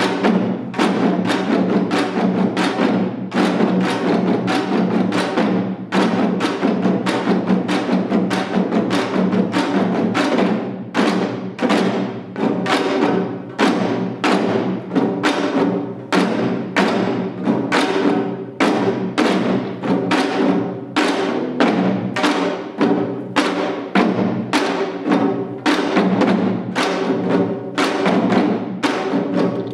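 Janggu, the Korean hourglass drum, played in seated seoljanggu style: a fast, unbroken run of sharp drum strokes in a driving, steady rhythm.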